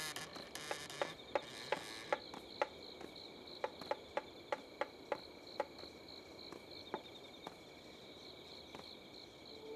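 Insects chirping in a faint, steady run of pulsed chirps, with a dozen or so sharp, irregular taps over the first seven seconds.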